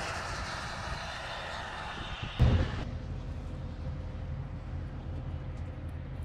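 A car passing on a wet highway, the hiss of its tyres on the wet road fading as it moves away. About two and a half seconds in there is a loud thump, then a low steady hum.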